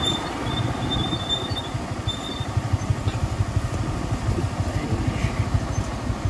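Motorcycle engine running steadily while riding, a fast even low rumble under road and wind noise.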